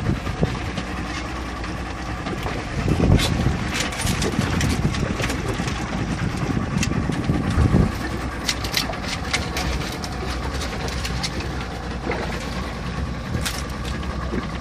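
Boat's Mercury outboard motor idling steadily, with scattered sharp clicks and knocks on deck and a couple of low gusts of wind on the microphone.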